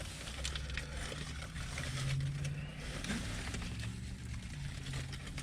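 Low steady hum of a car's idling engine heard inside the cabin, with a few faint small ticks from chewing and handling food.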